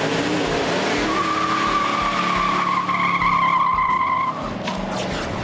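Pontiac GTO's V8 revving up as it accelerates through a turn. About a second in, the tires start a steady high squeal that lasts about three seconds.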